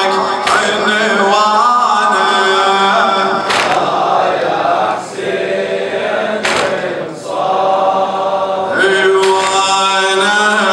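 Man chanting a Muharram lament for Imam Husayn, unaccompanied, in long ornamented sung lines over a steady low drone. The voice dips briefly twice, near the middle, for breaths.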